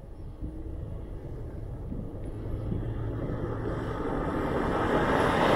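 Toyota Land Cruiser FZJ80 with its 4.5-litre straight-six engine driving toward the microphone along a dirt road, engine and tyre noise growing steadily louder as it approaches.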